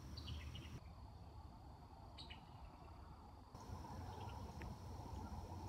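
Faint outdoor ambience: a steady high insect trill with a few short falling chirps.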